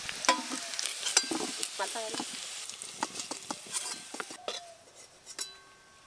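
Fried potato and taro pieces lifted out of hot oil in a kadai with a metal slotted spoon and tipped onto a steel plate: the oil sizzles while the spoon clinks and scrapes against the pan and plate. The sizzle fades after about four seconds, and a last metal clink rings near the end.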